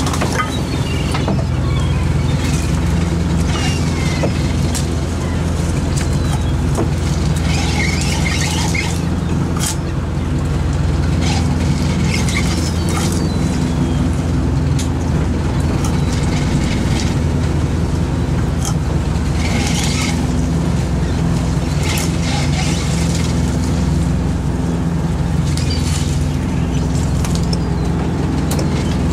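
A fishing boat's engine and powered net hauler running steadily while a gill net is hauled aboard, with short high squeals coming and going every few seconds.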